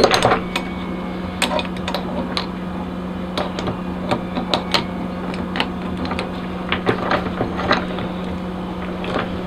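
Large channel-lock pliers working the steel trigger dog of a Duke dog-proof trap as it is squeezed closed: scattered light metal clicks and taps, over a steady low hum.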